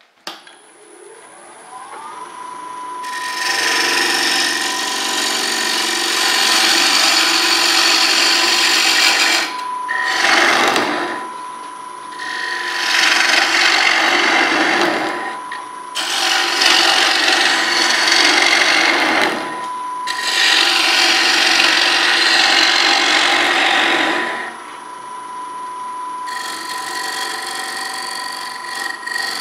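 A wood lathe clicks on and its motor whines up to speed, then holds a steady whine. Over it, a bowl gouge cuts the spinning, very dry elm bowl in several long passes with short breaks between them. The cuts turn lighter near the end.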